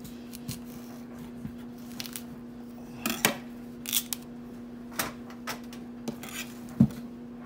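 Kitchen knife cutting a large raw sweet potato in half on a metal tray, then set down: a string of sharp clacks and knocks of blade and potato against metal, the loudest one near the end.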